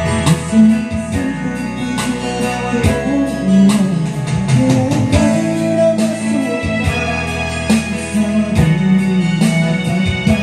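Karaoke backing track playing from a TJ Media TKR-305P karaoke player: a guitar and keyboard instrumental of a Tagalog ballad, with a melody line over it.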